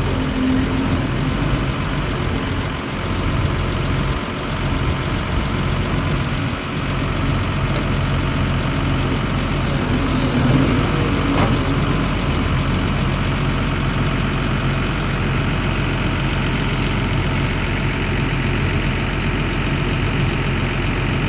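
John Deere 710K loader backhoe's diesel engine idling steadily.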